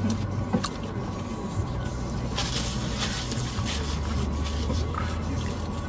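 Steady low hum of a car running, heard inside the cabin, with a few faint brief rustles about halfway through.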